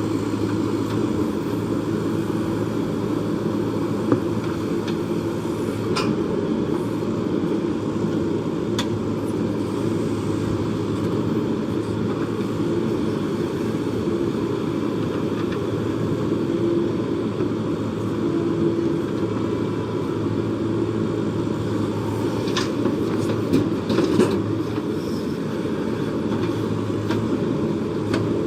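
Diesel engine of a JCB backhoe loader running steadily under work, with a few sharp knocks scattered through, a cluster of them near the end.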